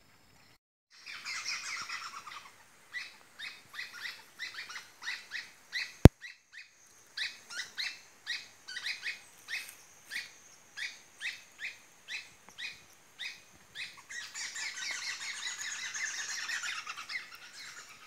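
Birds calling: a long series of short, high notes repeated about two a second, with denser chattering near the start and again near the end. A single sharp click about six seconds in.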